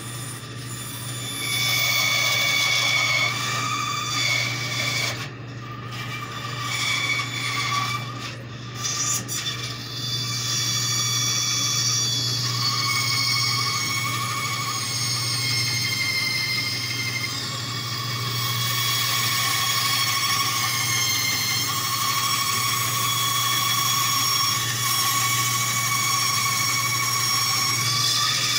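Bandsaw running with a steady low hum while its blade cuts a small piece of scrap wood, a whining rasp as the wood is fed through. The cut starts about a second and a half in, breaks off briefly twice as the piece is turned, then runs on steadily.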